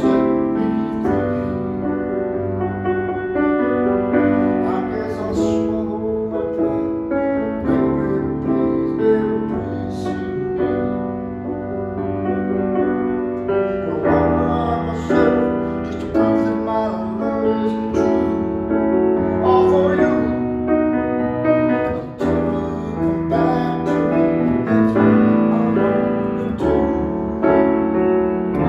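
Steinway & Sons Model B semi-concert grand piano being played: a continuous piece of chords under a melody, the notes ringing on into one another.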